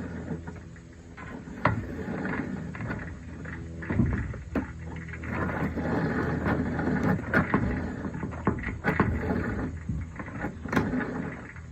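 Screwdriver and pick prying and scraping at the plastic wheel assembly of a robot vacuum, with irregular clicks and knocks, while a rubber O-ring belt is worked onto the wheel gears.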